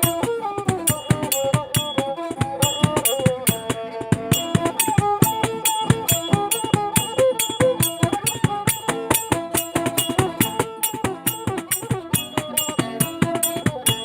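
Thai so fiddle playing a bending, sliding melody over a steady rattling percussion beat at about four strokes a second.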